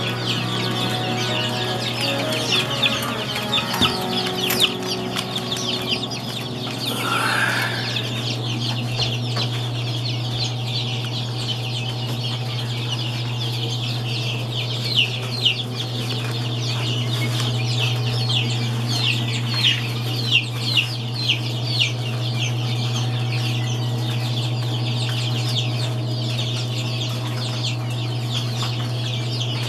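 A brooder full of young chicks peeping continuously in a dense chorus of short, high cheeps, over a steady low hum.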